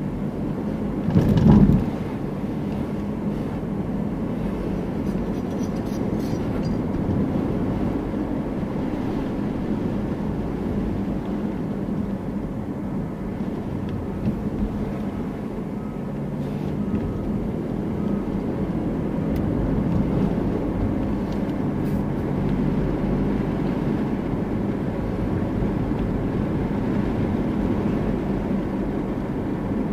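Car driving slowly, with steady engine and road noise, and one brief louder bump about a second and a half in.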